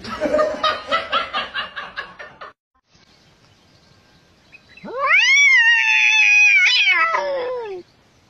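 A domestic cat gives one long yowl, a caterwaul that rises at the start, holds and falls away near the end, lasting about three seconds. Before it, a separate loud sound pulses about four times a second for the first two and a half seconds.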